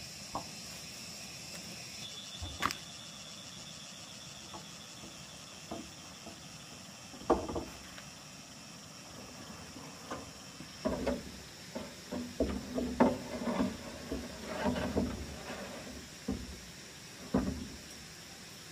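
Steady high chirring of insects, with scattered knocks and a busy run of clattering knocks in the middle to later part.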